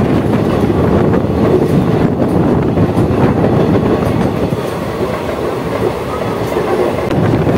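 Express train's ICF coaches running at speed, heard from on board: a steady rumble of the wheels on the rails.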